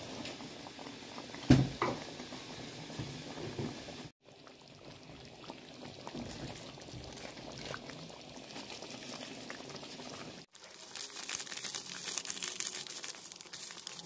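Thick coconut-chili rendang sauce with jengkol beans simmering and bubbling in a wok, with a sharp knock of the spatula against the wok about a second and a half in. The crackling gets busier near the end.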